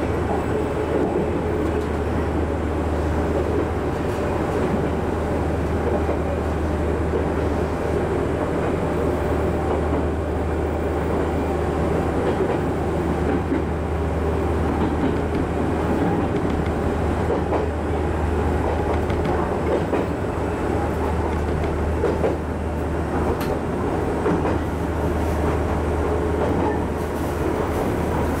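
Chichibu Railway 5000 series electric train running along the line, heard from inside the driver's cab: steady running noise of the wheels on the rails and the running gear.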